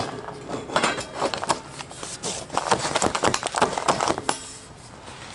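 Handling noise from assembling a black steel roof cargo basket on cardboard: a run of knocks, scrapes and short squeaks as its tubes and rubber grommets are worked together, quieter near the end.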